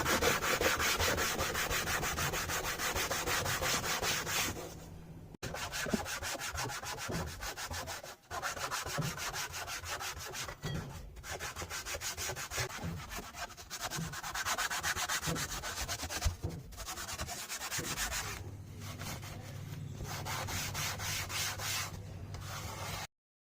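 Fast, steady scrubbing or sanding of a hard surface, pausing briefly a few times and stopping abruptly near the end.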